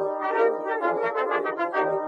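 Brass-led background music with a steady beat.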